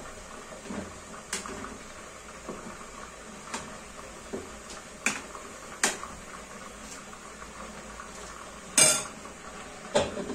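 Cookware clattering: a utensil knocking and clinking against a pot of nearly cooked macaroni in a dozen scattered strokes, with a louder, longer clatter about nine seconds in.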